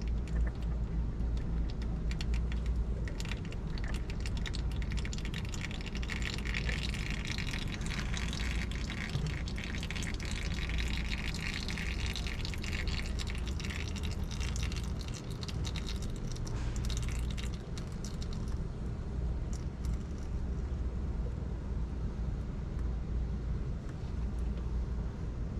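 Engine oil trickling from the emptied oil filter mount into a drain pan, easing off to drips after about 18 seconds, over a steady low hum.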